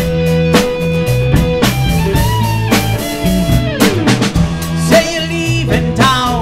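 Rock band playing live: drum kit, electric bass and electric guitars on a steady beat, with a man starting to sing about five seconds in.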